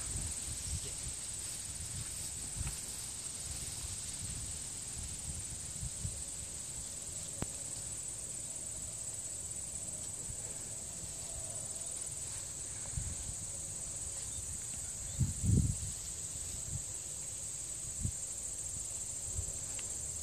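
Steady high-pitched chorus of field insects, with scattered low thumps and rumbles, the loudest a cluster about fifteen seconds in.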